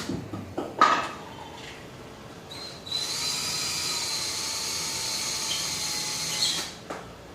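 Power drill running steadily for about four seconds with an even whine, taking screws out of the wooden loft platform. A knock is heard about a second in.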